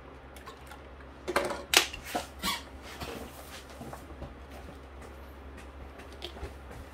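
A few sharp clicks and knocks from small objects being handled on a workbench, bunched about a second and a half in, with a few fainter ticks later, over a steady low hum.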